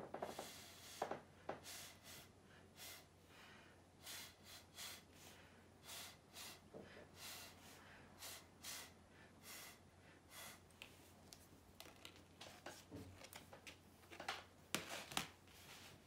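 Faint, short puffs of breath blown through a plastic straw onto wet pour paint, one after another about every half second, with a gap and then a few louder puffs near the end.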